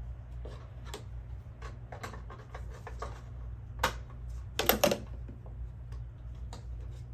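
Hands fitting a paper vacuum bag onto the plastic sealing bag collar of an upright vacuum's bag chamber: a run of small clicks and rustles, a sharper knock about four seconds in and a cluster of louder knocks just before five seconds, over a steady low hum.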